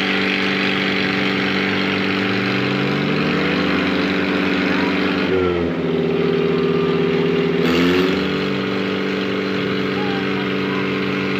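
Two Mahindra four-cylinder diesel tractors, a 585 DI and a 575 DI, running hard as they pull against each other in a tug-of-war. One engine holds a steady note while the other's pitch rises and falls, and the engine note changes for a couple of seconds around the middle.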